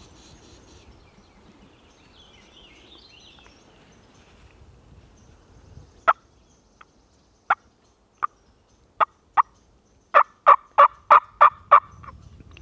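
Turkey clucks and yelps: sharp single clucks spaced about a second apart, then a quick run of about seven yelps near the end.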